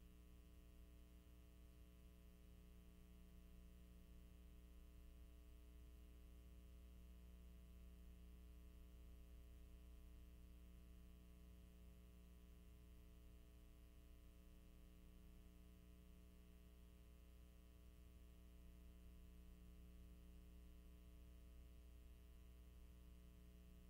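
Near silence: a faint, steady hum with no other sound.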